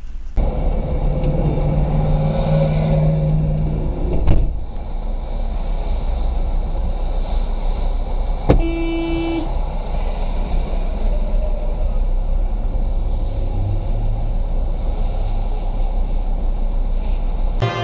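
Steady engine and road noise inside a moving car, picked up by a dashcam. A sharp click comes about four seconds in. Another click comes about eight and a half seconds in, followed by a short steady tone lasting under a second.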